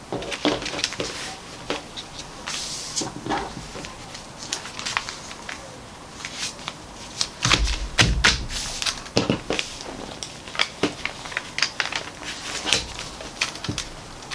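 Large paper sewing pattern rustling and crinkling as hands smooth and shift it over fabric, with irregular small clicks and a dull bump about eight seconds in.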